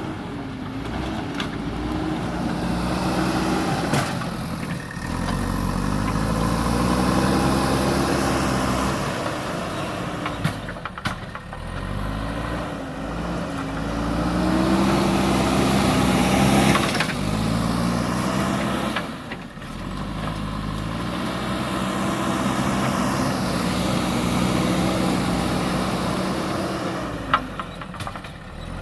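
Diesel engine of a JCB backhoe loader working, its revs rising and easing back again and again in cycles of several seconds as it takes load, with a few sharp clanks.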